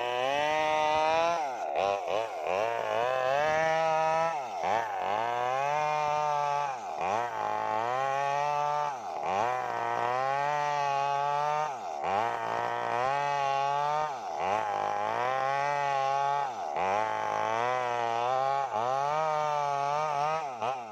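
Maestro mini chainsaw's small two-stroke engine running hard while ripping lengthwise through a big sengon log. Its pitch sags under the load of the cut and climbs back again about every two seconds.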